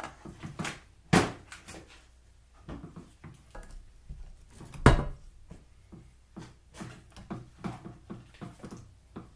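Irregular knocks, clicks and clatter of parts and tools being handled on a workbench, with two loud sharp thumps, one about a second in and one about halfway through.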